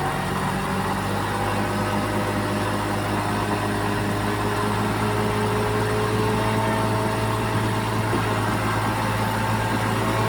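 Bulldozer diesel engine running steadily.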